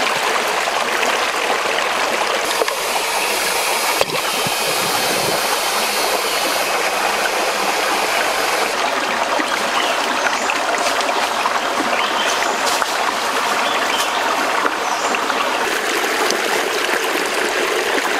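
Shallow rocky stream running and trickling steadily over stones, with one sharp click about four seconds in.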